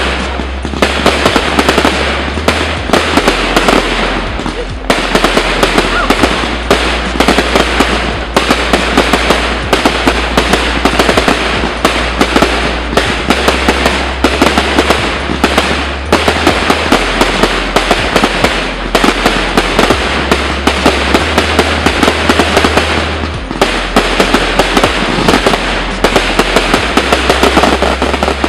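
Fireworks display: a dense barrage of shells bursting, with sharp bangs several times a second over continuous crackling, easing briefly about five seconds in and again a little past twenty seconds.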